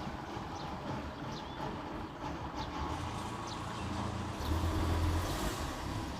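Kubota DC-105 combine harvester's diesel engine running steadily as the machine moves off. The low rumble swells for about a second near the end, and faint short high squeaks repeat about once a second.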